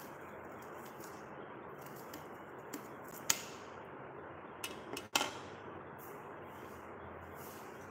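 Kitchen knife chopping onion on a stone countertop: a few sharp, irregularly spaced knocks, the loudest about three seconds in and a couple more about five seconds in, over a steady low hiss.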